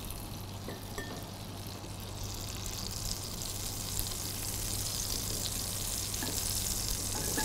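Butter melting and sizzling in a hot pot, the sizzle slowly growing louder as it heats, with a few faint taps of a wooden spoon stirring it.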